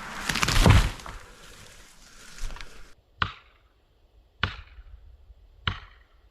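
A burst of crashing and rustling, loudest about a second in, that cuts off suddenly halfway through, then three sharp strikes about a second and a quarter apart, each with a short ring.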